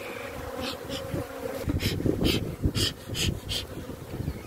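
Honeybees humming over an open hive, with a bee smoker's bellows puffing out a run of short hisses of smoke.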